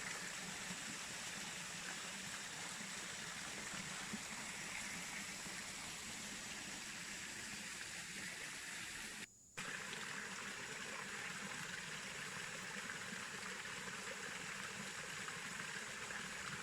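Small waterfall pouring into a rock pool, a steady rush and trickle of flowing water. It drops out briefly just past halfway, then comes back unchanged.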